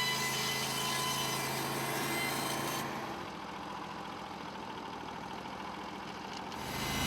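Portable band sawmill's gas engine running steadily. About three seconds in the sound turns duller and quieter, then comes back near the end.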